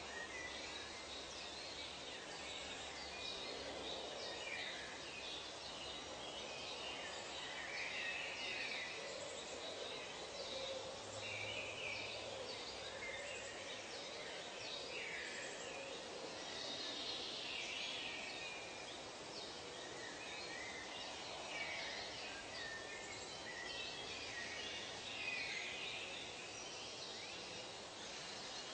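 Forest ambience: many birds calling and chirping at once, short overlapping calls scattered over a steady background hiss.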